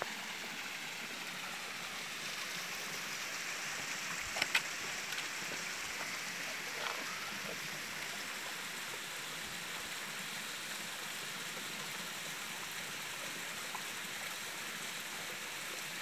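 Water running steadily over the rocks of a small forest stream and waterfall, an even rushing sound. A few short knocks come about four and a half seconds in.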